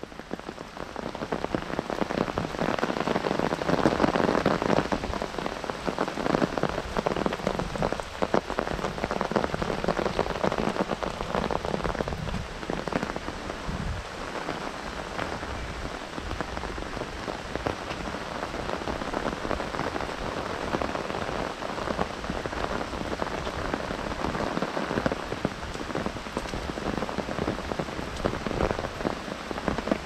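Heavy rain falling on an umbrella held overhead and on the wet path and vegetation around, a dense, continuous patter of drops. It fades in over the first second and is heaviest a few seconds in, then holds steady.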